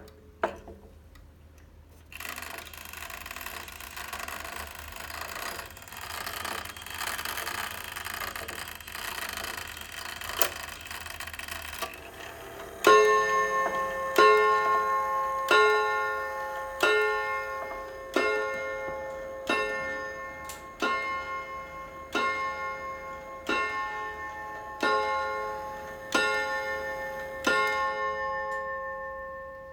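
Seiko Transistor chime wall clock striking twelve o'clock. A click near the start is followed by about ten seconds of chime melody, then twelve ringing strikes about 1.3 seconds apart. The last strike rings on and fades.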